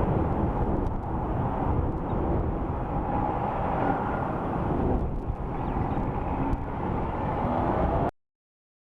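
2017 Mercedes-AMG A45's turbocharged four-cylinder engine running on the road, breathing through a decatted performance downpipe with a crackle tune, heard as steady engine and road noise. The sound cuts off suddenly about eight seconds in.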